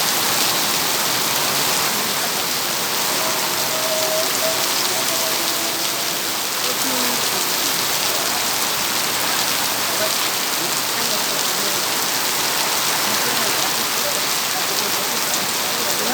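Heavy rain falling steadily, an even hiss of drops striking surfaces, with no break or change in strength.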